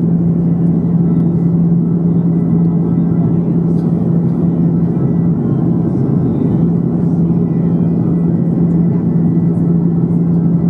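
Steady cabin noise inside an Airbus A330-300 in flight: a deep, even rush of airflow and jet engine noise with a steady low hum running through it.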